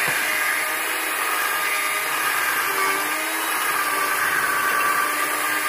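Electric drill with a paddle mixing bit running steadily at speed, churning drywall joint compound in a plastic bucket, with a steady motor whine.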